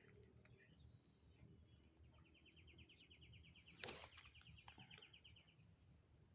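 Quiet outdoor background with a faint, rapidly pulsed chirping trill that starts about two seconds in and lasts about three and a half seconds. A single soft click comes near the middle.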